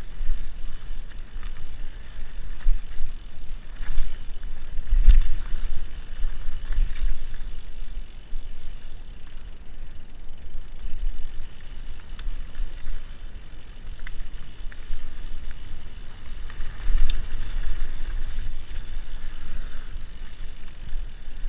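Mountain bike rolling fast down a dirt singletrack, picked up by an action camera on the rider: a fluctuating low rumble of tyres, trail vibration and wind on the microphone, with a few sharp knocks and rattles from the bike over bumps.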